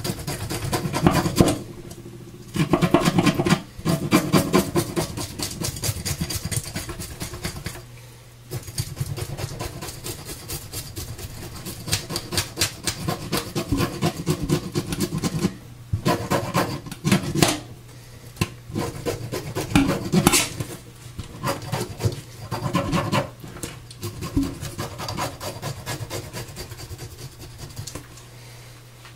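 Scales being scraped off a croaker in a stainless steel sink: bursts of rapid rasping strokes with brief pauses between them.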